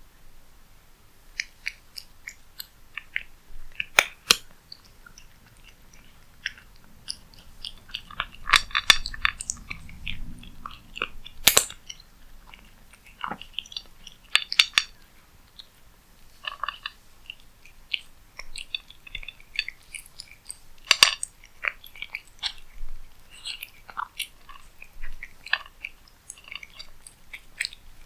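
A domestic cat eating cat food: irregular wet chewing and smacking with sharp crunches and clicks, busiest about a third of the way in.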